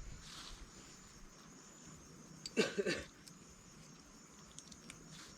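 Faint steady high-pitched insect drone in forest, with one short pitched vocal sound about two and a half seconds in.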